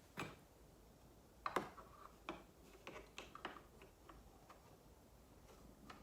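Faint clicks and taps of an anti-theft brace being handled and positioned onto a motorcycle's TFT screen, with the loudest tap about a second and a half in and a small cluster a little later.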